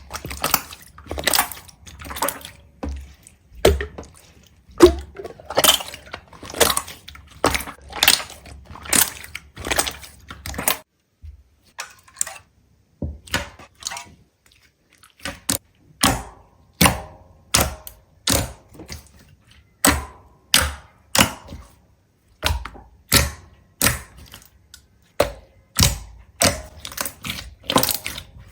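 A series of sharp taps, about one to two a second, with a pause of a few seconds about eleven seconds in.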